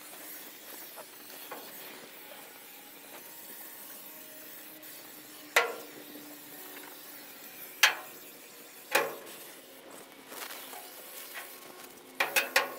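Aerosol can of canola oil cooking spray hissing as it coats the inside of a new steel offset smoker's cooking chamber to season it. Several sharp knocks cut through, with a quick cluster of three near the end.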